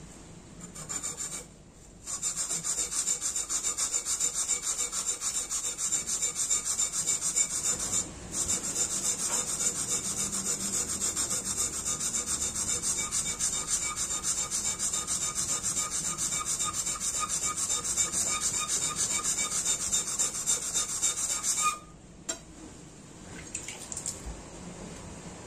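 Steel tanto blade ground back and forth on a wet whetstone in rapid short strokes, shaping the yokote and kissaki: a steady gritty scraping that starts about two seconds in, breaks off briefly about eight seconds in, and stops a few seconds before the end.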